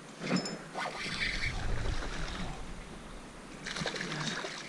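Small bass hooked on light tackle, splashing and thrashing at the water's surface about three and a half seconds in, after a stretch of rustling handling noise.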